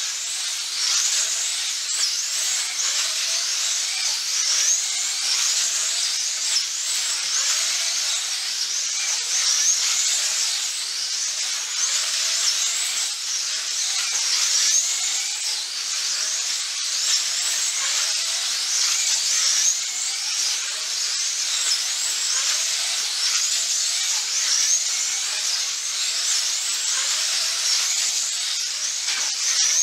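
Several 1/24-scale GTP slot cars racing, their small electric motors whining at high pitch. The many overlapping whines keep rising and falling as the cars speed up on the straights and brake into the turns.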